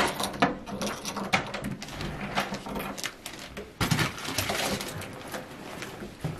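Hotel room door lock and lever handle clicking and rattling as the door is worked open, with a sharp click at the start, a run of smaller clicks and knocks, and a louder knock about four seconds in as the door gives.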